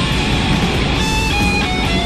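Rock music with distorted electric guitar and a full band; a lead guitar line bends and wavers near the end.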